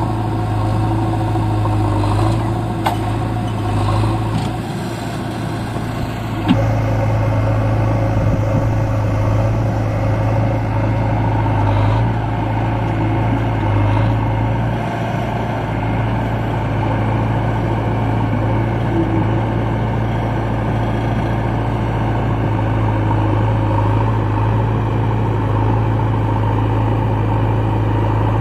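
Diesel engines of a Massey Ferguson 7250 DI tractor and a JCB backhoe loader running steadily, with a sharp click about six seconds in.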